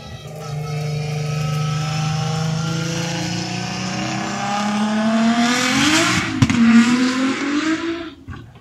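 A drift car's engine running at steady revs, then revving higher as the car comes past, loudest about six seconds in with a hiss of tyre noise. It fades away near the end.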